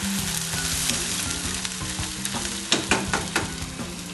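Broccolini and asparagus sizzling in a hot sauté pan with mussel stock just poured in. A utensil clicks against the pan several times in the second half as it is stirred.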